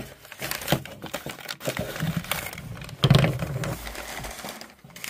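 Newspaper wrapping crinkling and rustling as a small figurine is unwrapped by hand, with a louder low thump about three seconds in.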